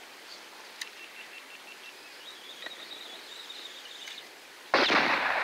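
Quiet outdoor background with faint, high chirping in the middle, then a sudden loud rush of noise lasting under a second near the end.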